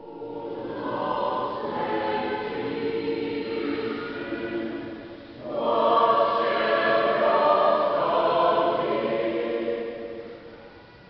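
Choir singing in a church, sustained voices in two phrases, the second louder, with a brief break between them; the singing fades away near the end.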